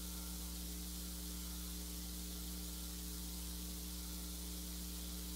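Steady electrical mains hum with a faint even hiss, unchanging throughout.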